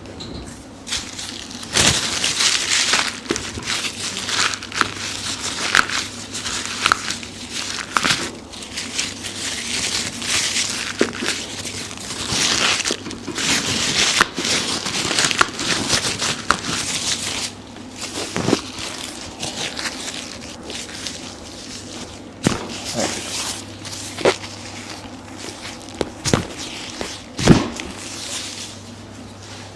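Rubbing and rustling of hands on skin and clothing as the chiropractor works on the patient, in repeated strokes of a second or two, with a few soft knocks. A low steady hum runs underneath.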